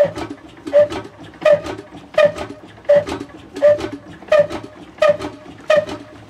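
Old 16 hp black single-cylinder diesel engine with a heavy flywheel, turning over slowly with a sharp, even beat about every 0.7 seconds, nine beats in all.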